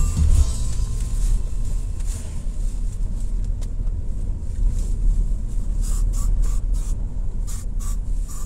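Car cabin road noise while driving: a steady low rumble of engine and tyres heard from inside the car, with a few short hissy bursts from about six seconds in.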